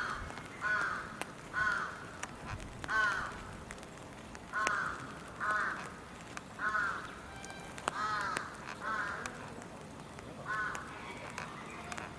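A crow cawing over and over, about ten short caws spaced roughly a second apart.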